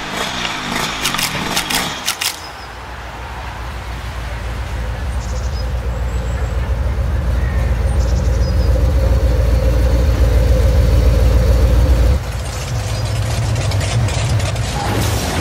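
Truck engine sound effects: a few sharp clicks in the first two seconds, then a deep engine rumble that grows steadily louder for about ten seconds and cuts off suddenly, followed by another engine running.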